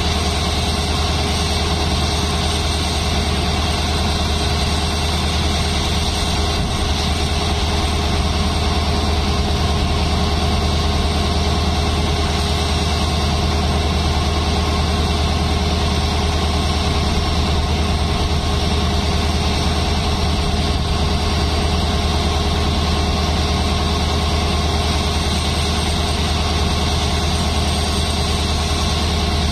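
WDP4D diesel locomotive's 16-cylinder two-stroke EMD engine idling at standstill: a loud, deep, even drone that holds the same pitch throughout.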